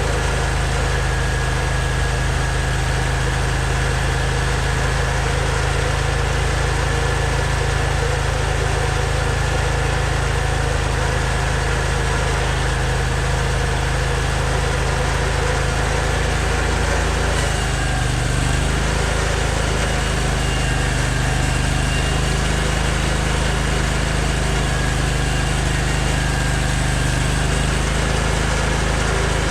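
Portable sawmill's engine running steadily while a log is milled into lumber. The engine note shifts about 17 seconds in.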